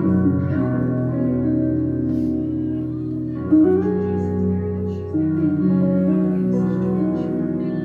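Background music with a plucked guitar playing sustained notes that change every second or so.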